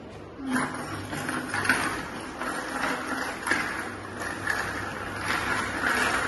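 Wooden push-along baby walker rolling across a hard stone-tiled floor, its wheels and frame rattling with irregular clicks.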